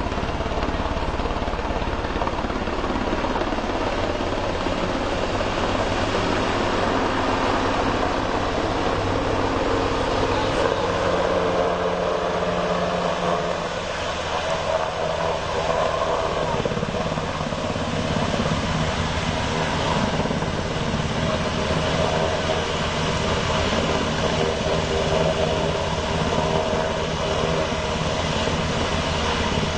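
Helicopter running steadily, its engine and rotor drone dipping slightly about halfway through and shifting in pitch after.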